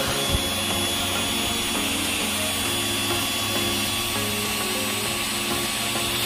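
Homemade drill driven by a 775 DC motor, running steadily at constant pitch with a faint high whine.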